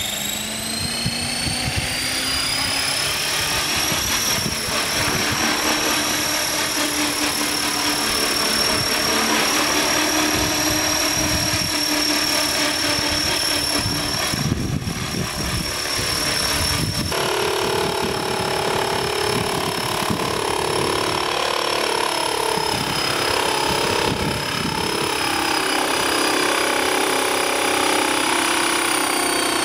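Radio-controlled model helicopter's motor and rotor whining, rising in pitch over the first few seconds as it spools up, then holding a steady high whine. The tone changes abruptly a little past halfway.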